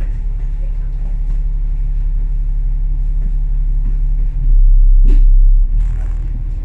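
Inside an Alexander Dennis Enviro500 MMC double-decker bus on the move: a steady low engine and road drone. A louder, deeper rumble swells in about four and a half seconds in and eases off a second later, with a sharp click in the middle of it.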